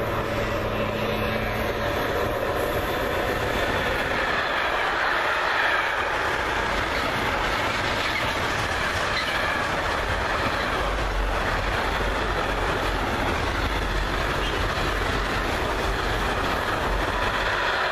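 An intermodal freight train hauled by an electric locomotive passing on the near track: a steady rush of steel wheels on rail, with the clickety-clack of the wagons rolling over rail joints.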